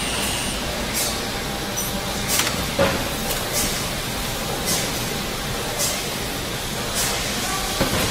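Construction site ambience: a steady background rumble and hiss with irregular sharp knocks and clanks, roughly one every second, one of them ringing briefly like struck metal.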